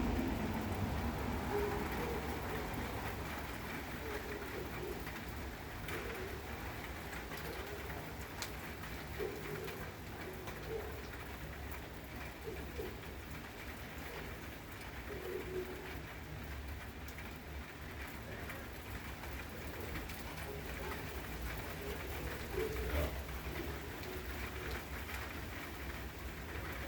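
Steady rain falling, with a dove cooing in short low notes now and then.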